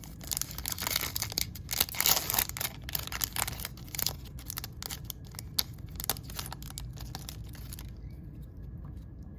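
Wrapper of a trading card pack being torn open and crinkled, then lighter rustling and clicks as the cards are handled. The crackling is densest over the first few seconds and thins out toward the end.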